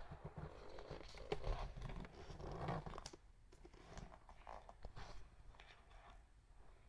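Faint rustling and scraping of faux-leather pumps being handled and slipped onto the feet, with a few light clicks.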